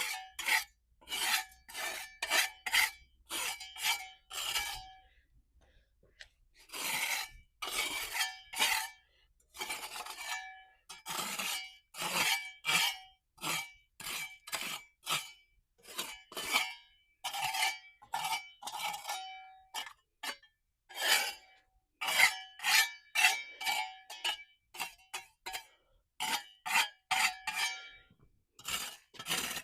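Metal scraping tool chipping and scraping leftover hardened mortar off the concrete of a pool in quick repeated strokes, the metal ringing briefly with each stroke. There is a pause of about two seconds about five seconds in.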